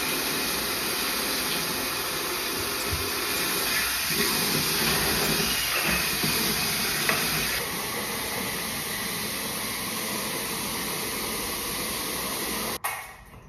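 Water running from a bathroom sink tap into the basin: a steady hiss that stops abruptly near the end.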